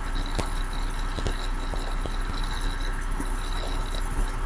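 Steady background hiss and low electrical hum from the recording setup, with a few faint clicks.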